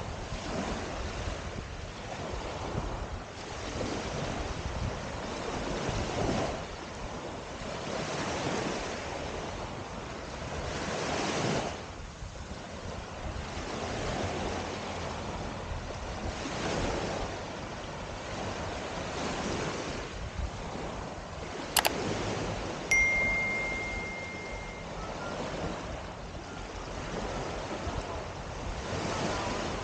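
Small waves washing onto a sandy beach, the surf swelling and fading every few seconds. About two-thirds of the way through comes a sharp click, then a short steady high beep lasting a couple of seconds.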